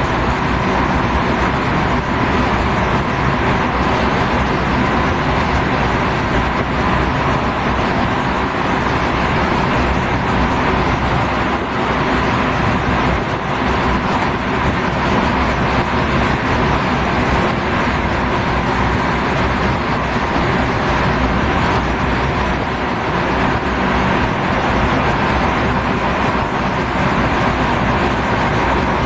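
Steady, unbroken running noise of a moving vehicle, with a faint steady tone over it.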